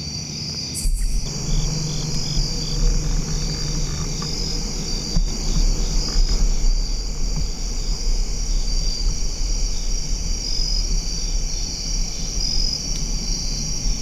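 Insects chirping steadily in a high pulsing drone, over a steady low rumble that starts about a second in.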